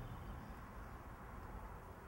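Faint, steady outdoor ambience: a low even hiss and rumble with no distinct event.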